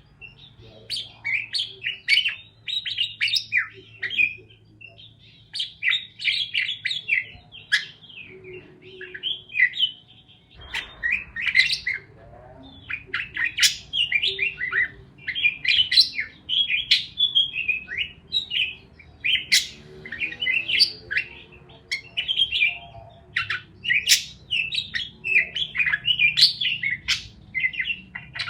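Parakeets chirping and warbling in quick, busy bursts of high chirps, with only brief lulls.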